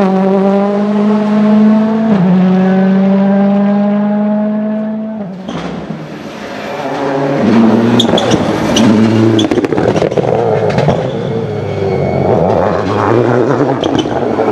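Rally car engine under hard acceleration, its pitch climbing, dropping with an upshift about two seconds in, then climbing again before fading about five seconds in. From about seven seconds, irregular, rougher engine revving returns with scattered sharp cracks.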